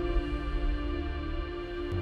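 Background music with soft, sustained chords.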